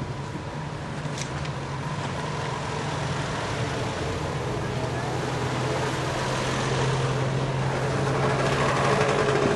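Street traffic passing close: the engines of a small open-top 4x4 and a motor scooter, the noise building gradually toward the end, over a steady low engine hum.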